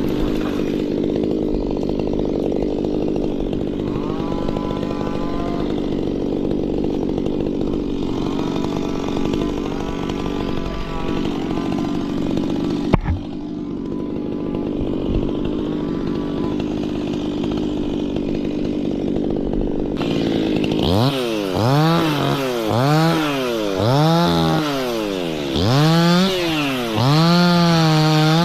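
Stihl chainsaw engine running at a steady low speed for most of the time, with a sharp click about halfway through. Near the end it is revved up and down again and again, the pitch rising and falling about once a second.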